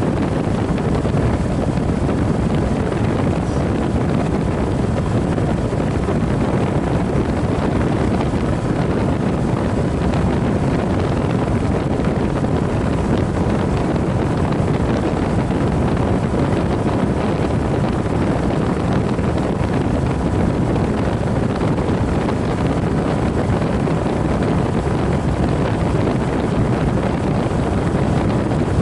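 Walk-in freezer condensing unit running: a steady, unbroken rush of condenser-fan air and machinery noise close to the microphone.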